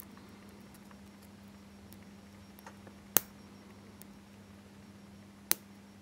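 Two sharp little metallic clicks, a little over two seconds apart, with faint ticks between, as a safety pin's tip works at and slips off the tiny retention latches on a micro USB plug's metal shell, prying the flattened latches up so the worn, loose plug will grip the port again. A faint steady hum runs underneath.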